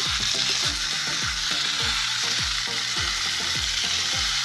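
A slab of pork sizzling steadily in a hot skillet over a wood fire, its second side just starting to fry after being flipped. A regular low beat, about three thuds a second, runs underneath.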